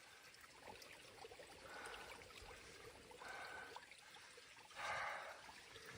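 Faint babbling of a small stream, with a few short noisy bursts over it, the loudest about five seconds in.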